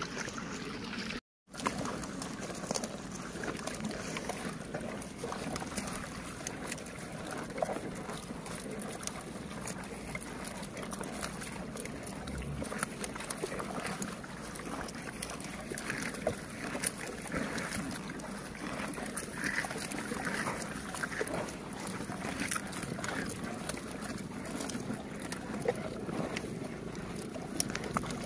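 Swamp buffalo tearing and chewing mouthfuls of kumpai batu grass while standing in water, with many short crunches and crackles of grass and water sloshing around their heads and bodies. The sound drops out for a moment about a second in.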